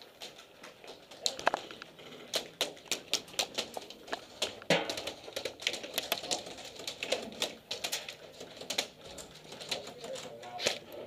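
Airsoft guns firing in a firefight: irregular sharp cracks, single shots and quick strings of several shots a second, from more than one gun.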